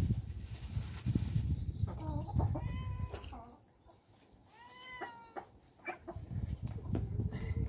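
Cat meowing twice while begging for food, each call arching in pitch, over a low rumbling noise.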